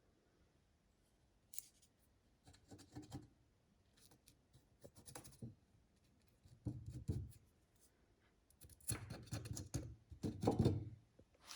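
Intermittent clicks, scrapes and rustles of objects being handled, with short gaps between them and a louder cluster near the end.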